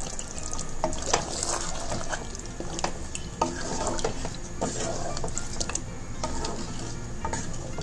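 Wooden spatula stirring thick curry in a metal pressure-cooker pot, with irregular knocks and scrapes against the pot.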